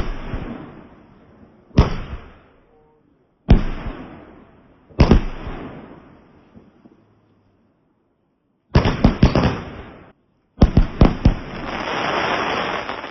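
Fireworks exploding: four single loud bangs about a second and a half apart, each fading out in a crackling tail, then after a short silence two quick runs of several bangs, the last one swelling into a dense crackle.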